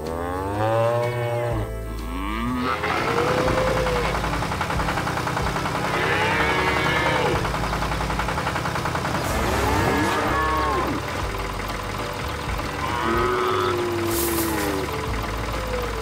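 Cows mooing, about five drawn-out calls a few seconds apart, over the low steady hum of a tractor engine. A short hiss sounds near the end.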